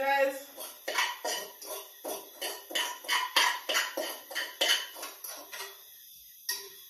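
A metal fork clinking and scraping against a frying pan, about three strikes a second, then a pause and one last clink near the end.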